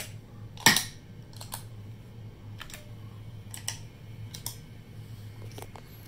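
Stompbox footswitches clicking as they are pressed by hand, about one click a second with the loudest under a second in. Underneath, the guitar amp's steady noise floor with every pedal on: a faint hiss from the gain and no buzz, the mark of a clean, isolated pedal power supply.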